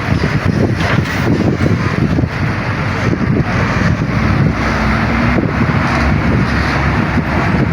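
Steady noise of road vehicles going past, with wind buffeting the microphone.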